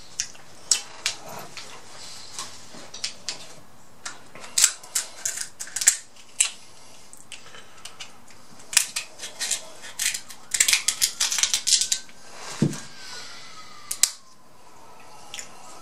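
Atlantic red crab claw and leg shell cracking and snapping as pieces are broken and picked off by hand: irregular sharp cracks and clicks, coming thickest in a quick flurry about two-thirds of the way through, with one dull knock shortly after.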